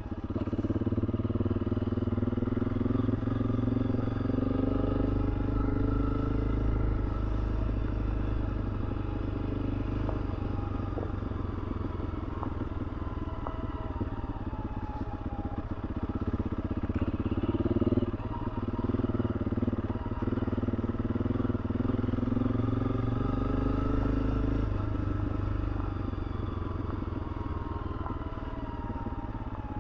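Honda CRF300L Rally's single-cylinder engine running as the bike is ridden slowly, its note rising and falling gently several times with the throttle.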